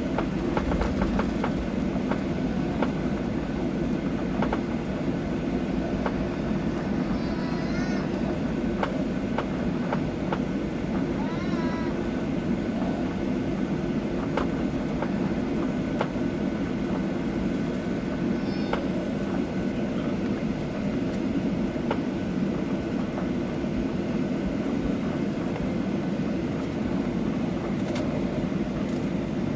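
Steady cabin rumble inside a Boeing 737-800, its CFM56 engines and air system running at an even level, with faint light rattles now and then.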